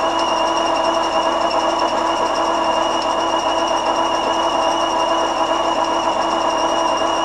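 Metal lathe running steadily at speed, a constant machine hum with a high whine over it.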